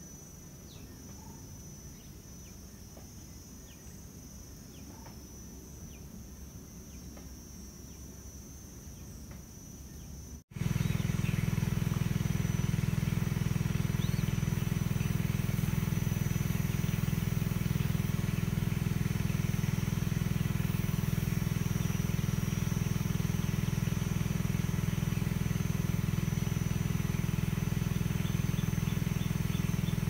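Faint outdoor background with a steady high insect drone and a few faint bird chirps. About ten seconds in, the sound cuts out for an instant and a much louder steady low drone takes over, like a motor running, with the high insect drone still above it.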